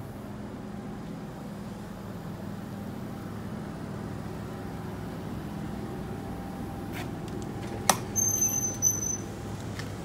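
Steady low mechanical hum, like a vehicle or machine running. About eight seconds in there is a sharp click, followed by a brief high two-part electronic beep.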